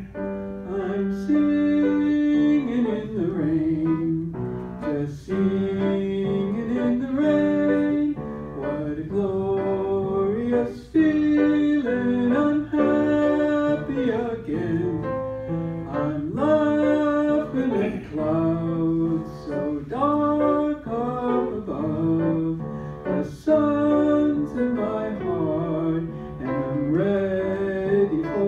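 A woman singing with instrumental accompaniment, holding notes and sliding between pitches.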